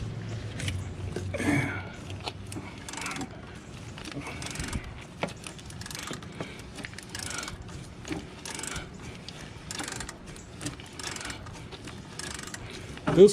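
Hand socket ratchet on a 13 mm socket, clicking through repeated back-and-forth strokes, roughly one a second, as it works a stiff exhaust-manifold bolt loose.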